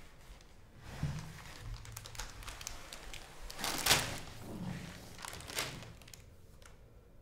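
A person sliding down a wall to sit on a hard stone floor: clothing rustling and scuffing against the wall, with a sharp thump about four seconds in as he lands, then a few softer rustles as he settles.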